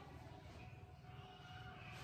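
Near silence: faint steady low room hum.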